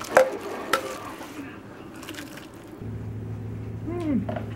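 Metal saucepan clinking twice against a ceramic bowl as soup is poured from it. After a cut, a steady low electrical hum, with a short rising-then-falling call near the end.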